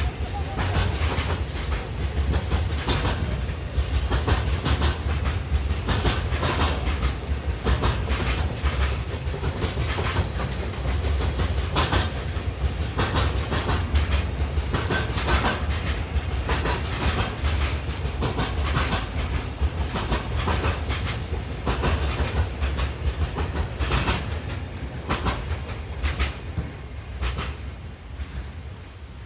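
Long freight train rolling past, its wagon wheels clacking steadily over the rail joints above a heavy rumble. The sound eases off over the last few seconds as the end of the train goes by.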